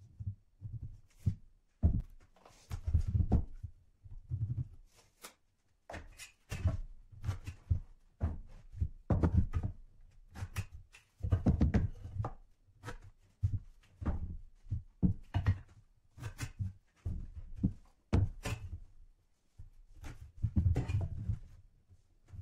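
Irregular knocks, thuds and scrapes of a wooden board and hand measuring tools (tape measure, steel square, pencil) being handled and set down on a worktable.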